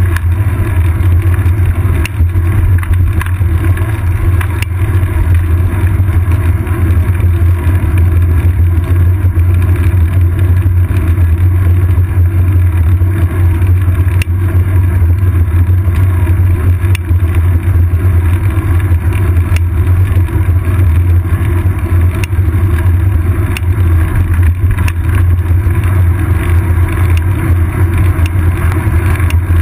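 Steady, loud low rumble of wind and road vibration picked up by a seat-post-mounted camera on a moving bicycle, with occasional faint clicks.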